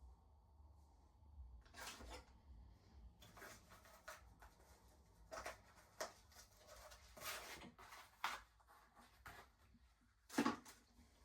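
Faint, scattered clicks, knocks and rustles of parts and tools being handled during e-bike assembly, with the loudest knock about ten seconds in.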